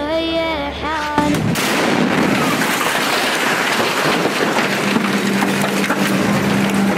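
A girl's chanting voice for about a second, then a sudden switch to loud, dense crackling noise with many sharp cracks. A steady low tone joins about five seconds in.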